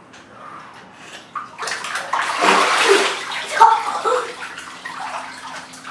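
Bathwater splashing and sloshing in a bathtub as children move about in it, loudest in a burst of splashing about two to three seconds in.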